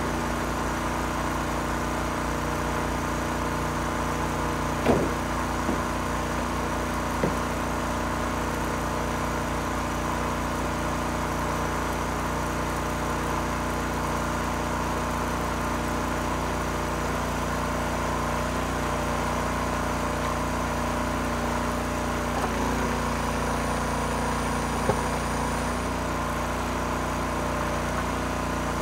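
Engine running steadily at constant speed while driving a log splitter during firewood splitting, with a few sharp knocks about five seconds, seven seconds and twenty-five seconds in.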